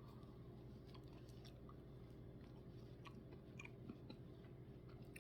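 Faint chewing and mouth sounds from eating a spoonful of soft-serve Blizzard with strawberry and graham pieces: a few soft, scattered clicks over a low steady hum.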